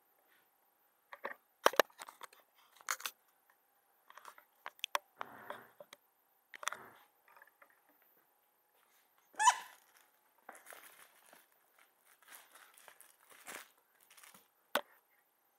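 Newfypoo puppy chewing and gnawing a plush toy: irregular crunching, rustling and clicking, with one short squeak about nine seconds in.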